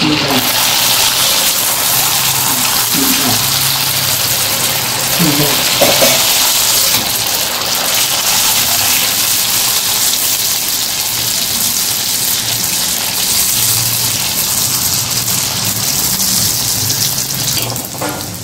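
Puris deep-frying in hot oil in a kadai: a loud, steady sizzle and bubbling of the oil around the dough rounds as they puff up. The sizzle jumps louder right at the start.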